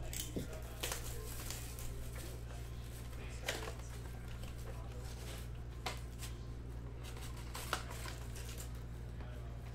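Scattered rustles and light clicks of baseball card boxes and packs being handled on a table, over a steady low hum.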